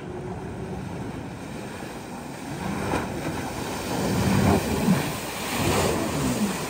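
Taiga Orca electric jet ski carving close by: rushing jet wash and spray hitting the water, with wind on the microphone. It swells louder about four seconds in and again near the end as the craft turns near.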